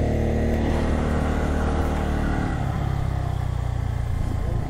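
Motorcycle engine running steadily as the bike climbs a hill road, with a steady hiss over it.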